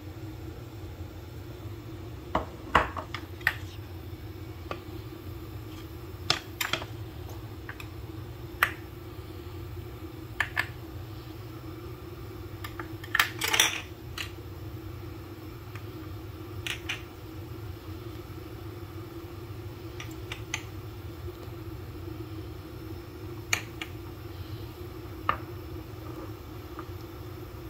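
Bowls being handled and set down on a stone countertop: scattered sharp clicks and knocks, with a short cluster about halfway through, over a steady low hum.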